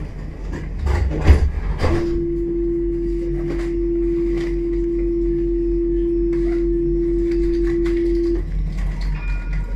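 A steady single electronic tone, one unbroken note held for about six and a half seconds, sounding on board a tram over its low running rumble. About a second in there is a heavy low thump, and near the end a faint higher two-note chime.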